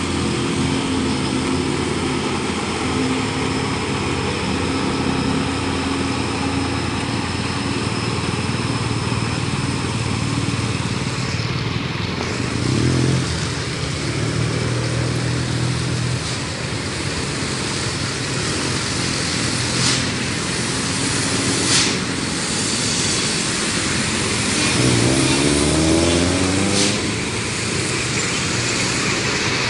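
Mixed road traffic passing close by: truck, car and motorcycle engines running, with engine pitch rising twice as vehicles pull through, and a few short sharp knocks.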